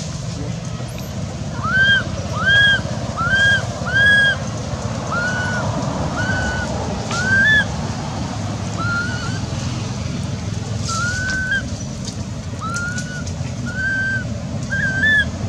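Newborn long-tailed macaque giving a series of short, rising-then-falling coo calls, about a dozen at irregular intervals, the distress calls of an infant being handled by its mother. A steady low rumble runs underneath.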